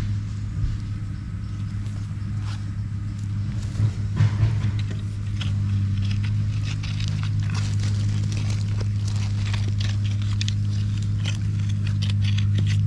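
A steady low hum, like a running motor, with scattered scrapes and knocks over it.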